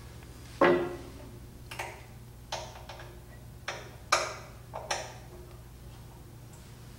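Scattered sharp clicks and taps from the lower side-guide assembly of a Laguna LT14 SE bandsaw being worked by hand as a side guide is brought in to the blade. There are about eight of them, loudest just after the start and about four seconds in, then they stop.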